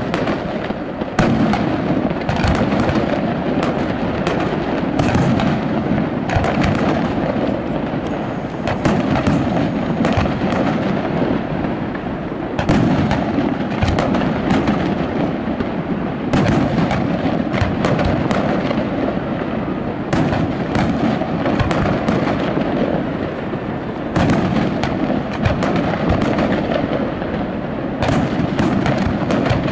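Aerial firework shells launching and bursting one after another: dozens of sharp bangs, at times several a second, over a continuous din.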